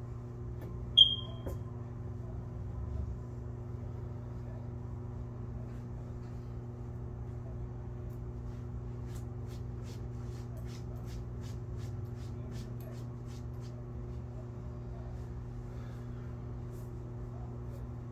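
A single short, high-pitched electronic beep about a second in, over a steady low hum. A run of faint light clicks, about three a second, follows from about nine to thirteen seconds in.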